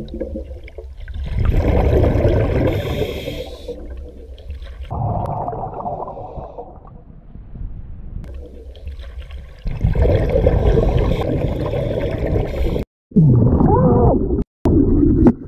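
Muffled, wet gurgling and low moaning noises that come in surges, with a gliding, voice-like sound near the end.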